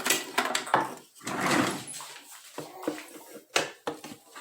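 Kitchen handling sounds: scraping and rustling, then a few sharp knocks of dishes and utensils.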